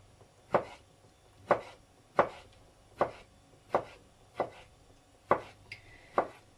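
Kitchen knife slicing a pickled cucumber into strips on a plastic cutting board: eight sharp knocks of the blade meeting the board, a little more than one a second.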